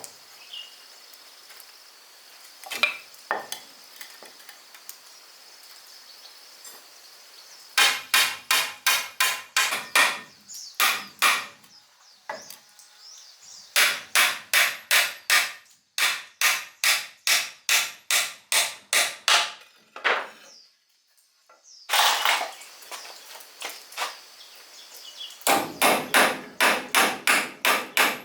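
Hammer blows on wood, struck in quick runs of about five a second with short pauses between. A steady high insect drone sounds before the hammering starts.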